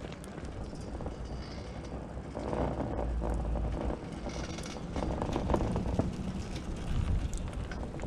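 Riblet center-pole double chairlift passing through a tower: the haul rope and the chair's fixed grip run over the tower's sheave wheels with a rumbling clatter. The rumble grows about two and a half seconds in and is loudest through the middle of the pass.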